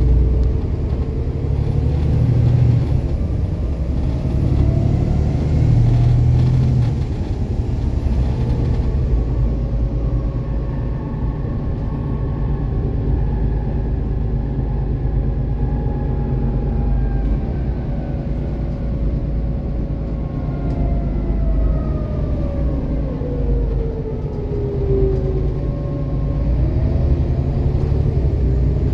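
Volvo B7TL double-decker bus under way, heard from the upper deck: the six-cylinder diesel engine's steady low rumble, with thin whines from the driveline that rise and fall as its speed changes.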